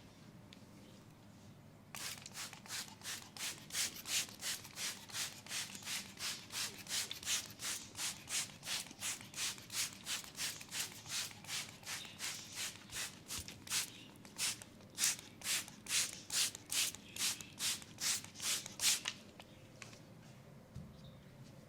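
Hands rubbing briskly back and forth over skin in massage strokes, about two strokes a second. It starts about two seconds in and stops near the end.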